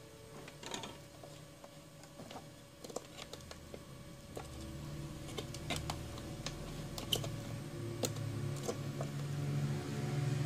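Scattered light clicks and knocks of small objects being handled and moved about, with a low steady hum coming in about four and a half seconds in and growing slightly louder.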